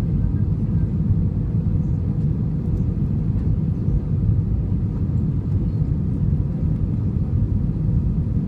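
Airbus A320 airliner during its landing: a steady low rumble of engines and airflow that holds an even level throughout.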